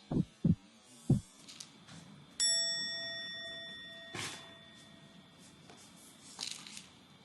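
Three short blips that each drop quickly in pitch in the first second or so, then about two and a half seconds in a single clear bell-like ding that rings out and fades over about two seconds, followed by a few faint clicks and rustles.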